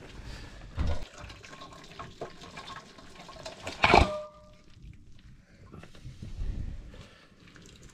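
Stinging-nettle greens boiling in a pot of water, with a bubbling, watery sound. About four seconds in, a single sharp metal clank rings briefly, a steel plate knocking against the pot.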